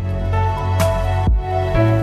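Background music with a steady beat: sustained synth chords over a regular low kick.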